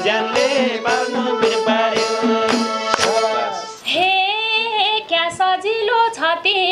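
Live Nepali dohori folk song: a group sings over a steady drone, with hand clapping and tambourine keeping the beat. The accompaniment stops a little before four seconds in, and a woman's voice goes on alone.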